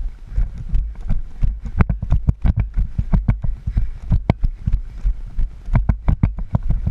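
Footsteps of a player walking over woodland ground, a quick uneven run of thuds with clicks and rattles of carried gear.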